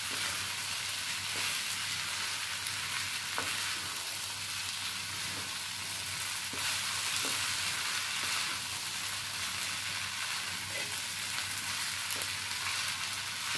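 Soaked tapioca pearls with diced potato and tomato sizzling in a frying pan as they are stirred, a steady hiss with a few light scrapes and taps from the stirring.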